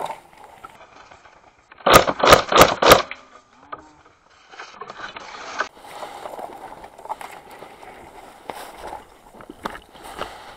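Four quick shots from a JG G36C airsoft electric rifle fired one at a time, about a third of a second apart, about two seconds in. Then rustling of dry grass and brush.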